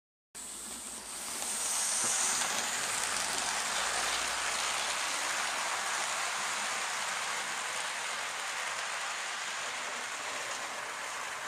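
A steady rushing hiss, like rain, that starts abruptly about a third of a second in and holds evenly.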